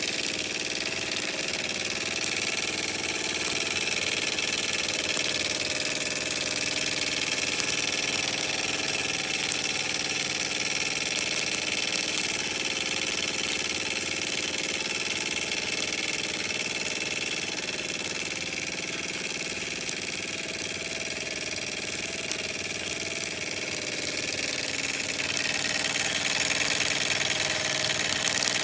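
Microcosm M89 miniature steam engine running steadily on steam from its boiler, a fast even mechanical beat over a hiss.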